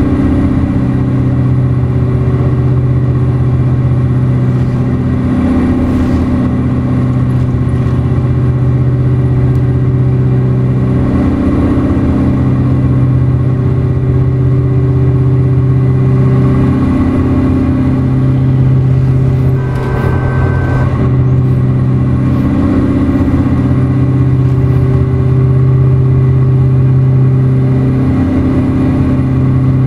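Caterpillar 3408 V8 diesel truck engine running steadily, its low engine note holding an almost constant pitch.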